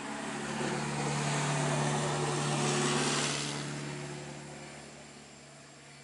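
A motor vehicle passing on the road: its engine drone and tyre noise swell to a peak about halfway through, then fade away.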